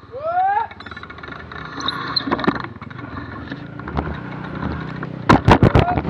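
Dirt bike engine running on the trail, with a short rising rev near the start. A quick series of loud knocks comes near the end.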